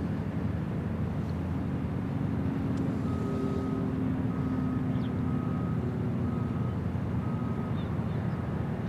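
Steady low mechanical rumble with a hum across the docks. From about three seconds in, a string of short, single-pitched high beeps repeats roughly once a second.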